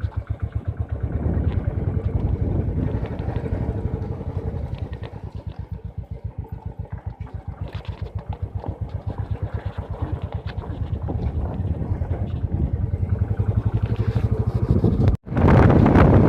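Motorcycle engine running at low speed with an even, fast pulsing beat. About fifteen seconds in, the sound drops out for an instant and loud wind noise on the microphone takes over.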